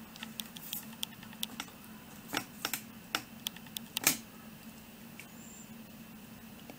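Light clicks and taps of small metal and plastic parts as the gutted Heathkit grid dip meter's chassis is handled and turned over, scattered through the first four seconds with a sharper knock at the end of them. A faint steady low hum lies under it.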